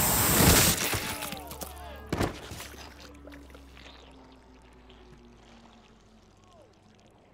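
Film sound effect of a superhero's heat-vision laser blast striking a man: a loud searing burst about a second long with a wet splatter, and a second sharp hit about two seconds in. The sound then dies away to a faint hush.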